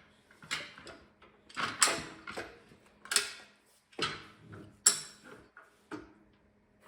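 A jack being pumped to lift the front end of a tractor, a sharp metallic clack with each stroke, about one stroke a second.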